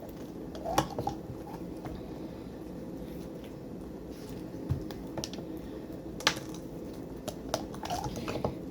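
Slime being handled and pressed into its plastic container: scattered sticky pops and light plastic clicks, loudest about six seconds in, over a faint steady hum.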